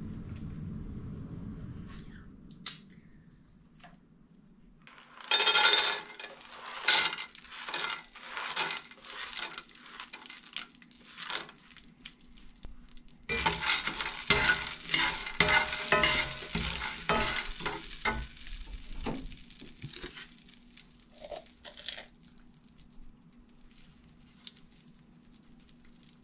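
Shelled raw peanuts sizzling in butter in a cast iron skillet, stirred and scraped around with a metal spatula, rattling and scraping in two long bouts. A steady low hum runs underneath.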